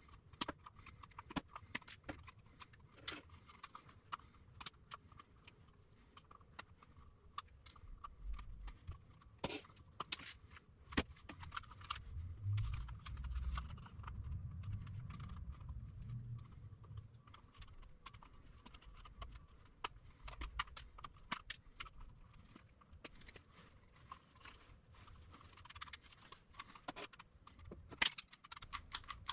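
Irregular light clicks and taps of hard plastic and metal parts being handled and worked on by hand, with a few low thuds about halfway through.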